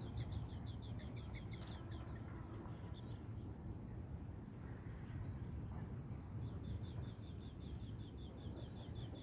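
A bird calling in fast runs of short, high chirps, about six a second: one run in the first couple of seconds and another starting about two-thirds of the way through. A steady low rumble lies underneath.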